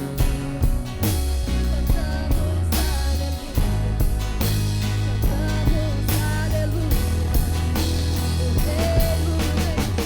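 Live worship band playing an instrumental passage with drum kit, bass and guitar, a steady beat and a sustained bass line.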